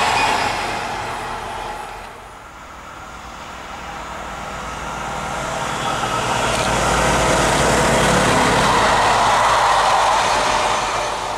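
Diesel-hauled trains passing. The sound of one train fades away over the first two seconds. Then a second diesel locomotive hauling a coach grows louder, with a steady engine tone over the wheel noise, is loudest around eight to ten seconds in, and fades near the end.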